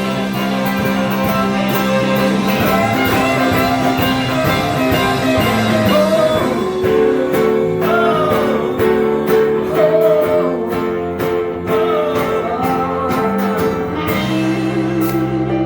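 Live band playing a rock song: guitars holding steady chords under a sliding lead melody.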